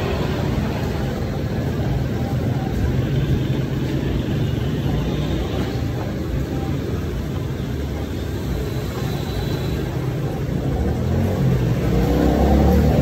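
A steady low rumble of background noise, growing somewhat louder near the end.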